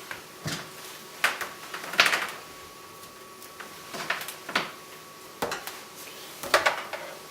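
Eight or so light clinks and knocks, spaced irregularly, of hard metal parts being handled while the cooling-water hoses are connected to a copper still, over a faint steady hum.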